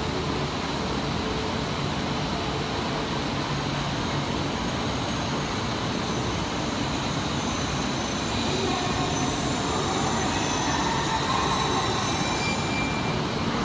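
Shinkansen train, out of sight in the underground station, running with a steady rumble; a whine and a faint high squeal from the wheels join about eight seconds in as it grows a little louder.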